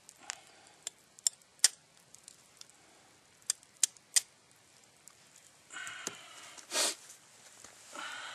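Scattered sharp clicks and snaps in the first half, then a few short raspy noises and one loud breathy rush near the end.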